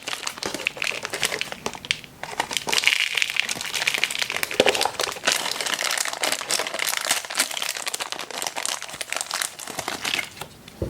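Crinkly toy-surprise packaging being handled, a dense run of crackling and rustling.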